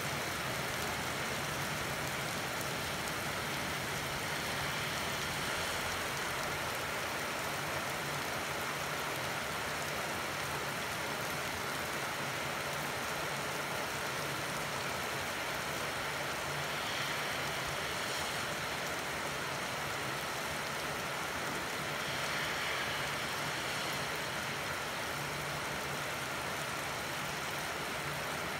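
Steady rain falling, a continuous even hiss of drops on wet pavement, grass and building, with a faint low hum underneath.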